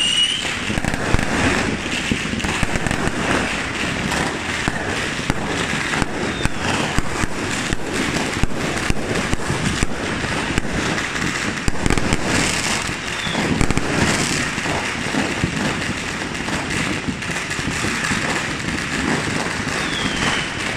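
Fireworks going off nonstop: dense, rapid bangs and crackling from aerial bursts, with a few short falling whistles.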